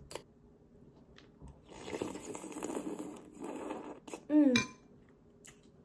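Spoonfuls of canned noodle soup being slurped for about two seconds, with a few light clinks of a metal spoon against a glass bowl. Shortly after, a brief vocal sound falling in pitch, a reaction to the taste, which turns out very salty.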